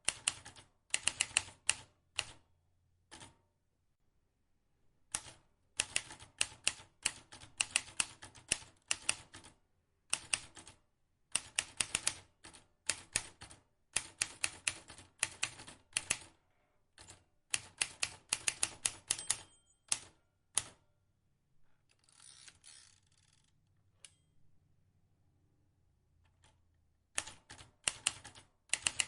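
Vintage manual typewriter being typed on: runs of sharp key clicks, several a second, broken by short pauses, with a brief rasping sweep about two-thirds of the way through.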